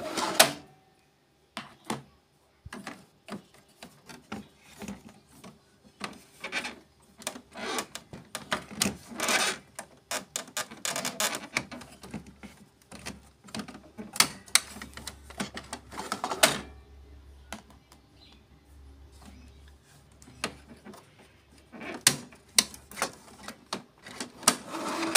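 Irregular plastic clicks, snaps and rattles of ink cartridges being pressed, unclipped and pulled out of the carriage of a Canon Maxify MB2340 printer, with a quieter spell a little past the middle.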